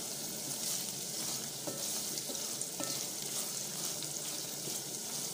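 Small dried omena fish sizzling in hot oil in a metal pot as they are stirred with a wooden spoon: a steady frying hiss with a few faint scrapes and crackles. The water in the fish is cooking out in the oil as they fry toward crunchy.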